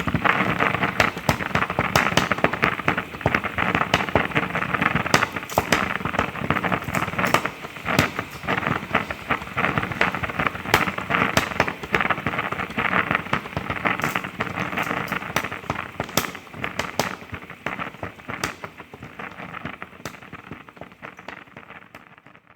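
Steam at a sake brewery hissing and sputtering, a dense rushing noise full of crackles and sharp pops. It thins out and fades over the last few seconds, then cuts off.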